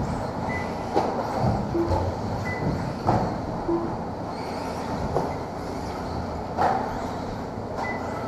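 Electric RC buggies racing on an indoor carpet track: a steady rushing hum of motors and tyres, broken every few seconds by a sharp knock.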